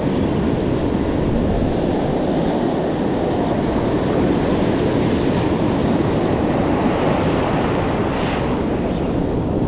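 Sea surf washing on the rocks, steady throughout, with wind buffeting the microphone.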